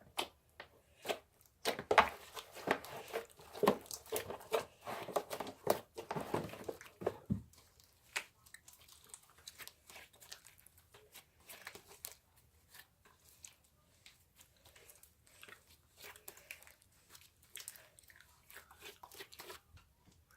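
Slime being mixed and squished by hand, a batch of several slimes with foam beads, giving a stream of wet crackling and popping clicks. The crackling is louder for the first seven seconds or so, then softer, and stops shortly before the end.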